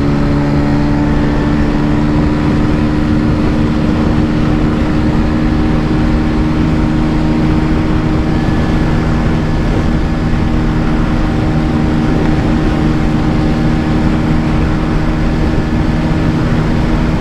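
Bajaj Pulsar 125's single-cylinder engine pulling at high revs in fourth gear, a steady drone as the speed climbs from about 80 toward 100 km/h, with wind rushing over the microphone.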